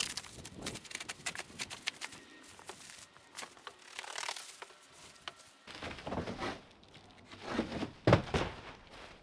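Plastic stretch wrap being torn and pulled off a pallet shipment, crackling and crinkling, with rustling cardboard. Near the end a loud thump as the outer cardboard box is lifted off and tossed aside.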